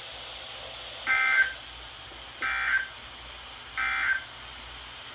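Three short bursts of Emergency Alert System (SAME) digital data tones, about 1.3 s apart, over a steady broadcast hiss. Their shortness, at the close of a spoken tornado warning, marks them as the end-of-message code. The hiss cuts off abruptly near the end.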